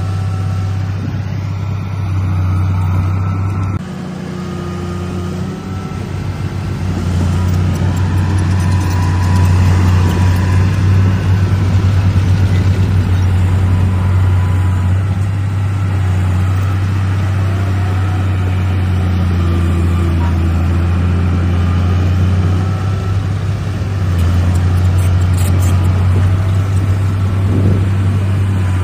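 Heavy diesel engine of earthmoving machinery running steadily with a deep, continuous drone. It drops suddenly about four seconds in, then grows louder over the next few seconds and holds there, as if coming under load.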